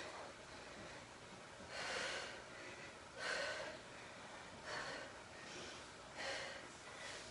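A woman breathing hard while exercising: short, forceful exhales roughly every one and a half seconds, in time with her plank knee drives and leg kicks.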